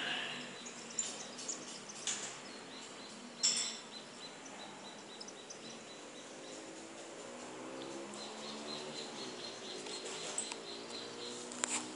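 Faint outdoor background noise, broken by a few sharp clicks of the phone being handled, the loudest about three and a half seconds in, with a faint low hum in the second half.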